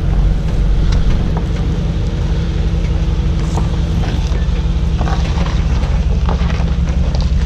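Mercedes-AMG G63's twin-turbo V8 running at a slow off-road crawl, a steady low engine rumble.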